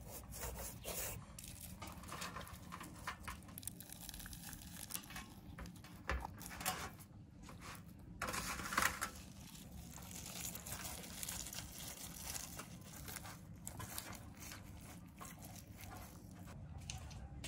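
Hands rubbing salt over the skin of a whole raw fish on a stainless steel tray: irregular gritty rubbing and scraping strokes, louder for a moment about eight to nine seconds in.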